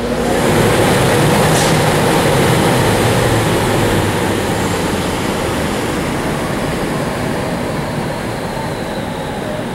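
Ceilcote 75 hp fiberglass centrifugal exhaust blower with its Siemens premium-efficiency motor, bumped on: the fan comes up to speed and runs with a loud steady rush of air. Over the seconds the level slowly eases and a faint high whine falls in pitch. It runs very smooth; motor and bearings sound very good.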